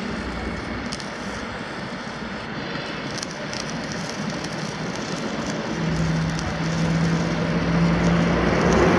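Diesel engine of a heavy multi-axle transporter running steadily, a low rumble under a noisy hiss. A steady hum comes in about six seconds in, and the sound grows louder toward the end.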